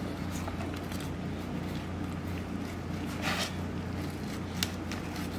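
A 7-inch flexible fillet knife scraping and slicing into a scaled long-tail sea bass on a plastic cutting board: a few brief soft scrapes and a sharp tick over a steady low hum.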